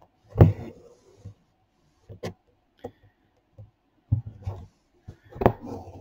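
Handling noise from hand embroidery: scattered soft knocks, clicks and rustles of fingers on a wooden hoop and fabric as a needle and stranded thread are worked through. The loudest knocks come about half a second in and about five and a half seconds in.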